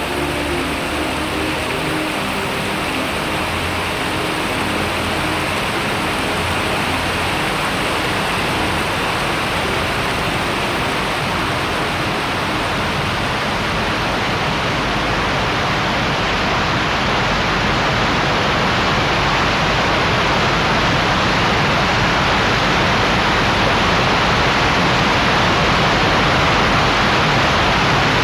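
Waterfall: a steady rush of falling water, growing a little louder in the second half.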